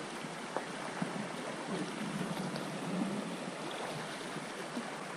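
Shallow river water babbling over a stony riffle: a steady rush of water with small splashes and clicks scattered through it.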